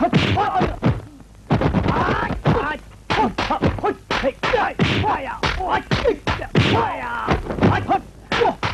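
Kung fu fight sound effects: rapid punch, kick and block impacts, several a second, a mix of sharp whacks and dull thuds, with the fighters' grunts and shouts between them. There is a brief lull about a second in.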